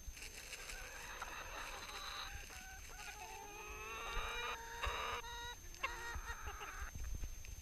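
A flock of domestic hens clucking and calling, many short overlapping calls, while they crowd in to be hand-fed bread.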